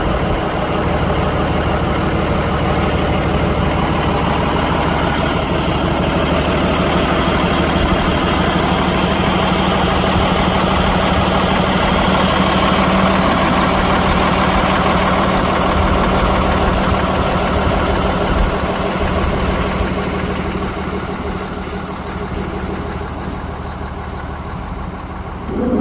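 Vehicle engine running steadily at low speed, swelling slightly in the middle and easing off near the end.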